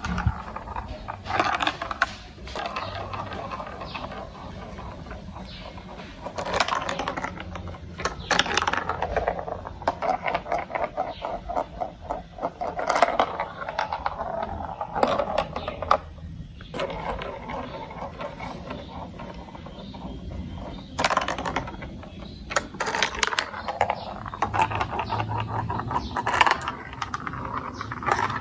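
Marbles rolling and clattering through a plastic building-block marble run, with sharp clicks and rattling runs of rapid ticks as they drop and bounce along the track pieces.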